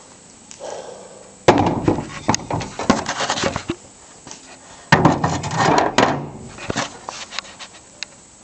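Handling noise around an aluminium supercharger case: two bouts of clattering knocks and rattles, the first about a second and a half in, the second about five seconds in, each dying away over a second or two.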